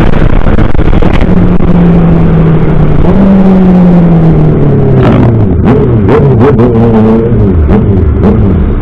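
Honda CB650 inline-four motorcycle engine running loud under way. Its pitch climbs about a second in, holds, then falls off between about three and five seconds as the revs drop, and wavers after that, with several short clicks in the second half.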